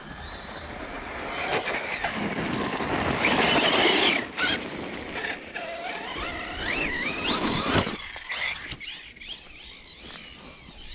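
ARRMA Siren 6S 1/10 scale 4WD RC truck driving over snow-covered gravel. Its electric motor gives a high whine that rises and falls in pitch with the throttle, over the rush of tyres. It is loudest about four seconds in and fades away after about eight seconds.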